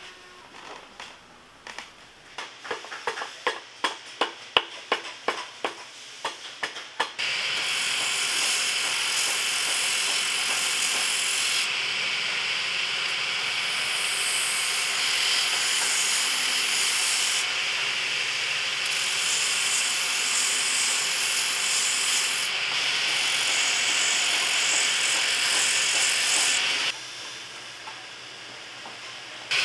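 A run of sharp clicks, about three a second, then the steady hiss of a boot-finishing machine's sanding belt grinding the edge of a rubber sole cut from off-road truck tire tread. The grinding shifts in level a few times and turns quieter near the end.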